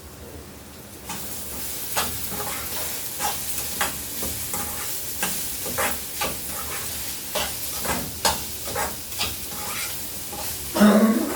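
Grated coconut frying in sesame oil in a pan: a steady sizzle that starts about a second in, with the spoon stirring and scraping in repeated short strokes. A louder clank comes near the end.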